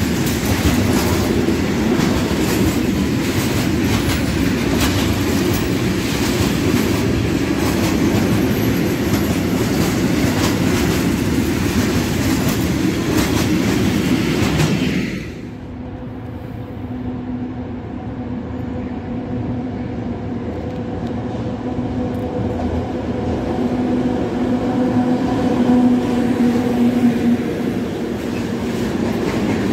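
Freight train wagons rolling past close by, wheels clattering over the rail joints. About halfway through the sound drops abruptly to a quieter rumble with a steady droning tone as the wagons keep passing.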